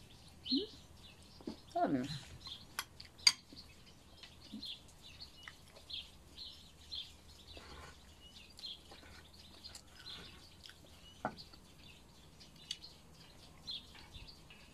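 Spoon clinking against a bowl and mouth sounds of chewing, with a sharp click about three seconds in as the loudest sound. Small birds chirp repeatedly in the background throughout.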